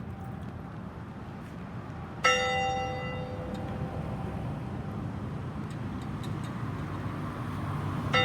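Church bell tolled slowly: one stroke about two seconds in rings out and fades over several seconds, and the next stroke lands at the very end, about six seconds later. The fading tail of the stroke before dies away at the start, over a steady low rumble.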